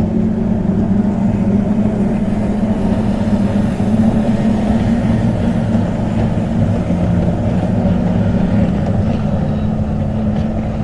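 Motorboat engine running at steady speed, a loud low drone that holds its pitch.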